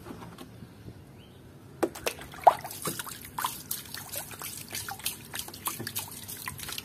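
Water splashing and dripping as muddy plastic toys are swished and rinsed by hand in a tub of water. Quiet at first, then from about two seconds in a quick run of small splashes and drips.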